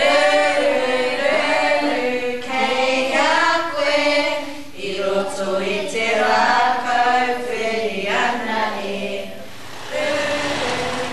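A group of young children chanting and singing in unison, a Māori kapa haka performance.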